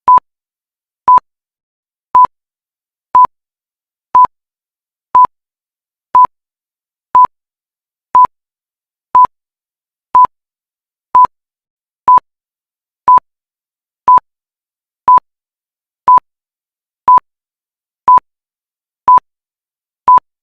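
Countdown timer beeping: a short electronic beep of one steady pitch, once a second, ticking off each second of the count.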